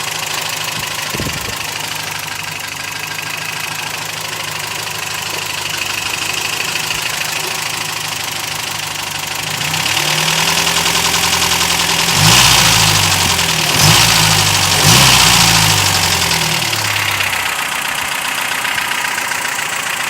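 Toyota 22RE 2.4-litre four-cylinder engine idling with a ticking noise. About halfway through it is revved up, with three quick blips, then drops back to idle.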